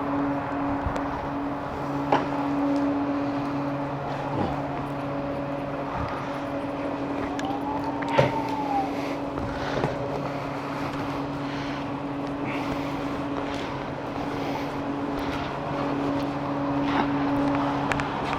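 Steady vehicle hum with a low drone and its overtones, over a haze of road and wind noise, broken by a few short clicks. Twice a tone sweeps up and back down.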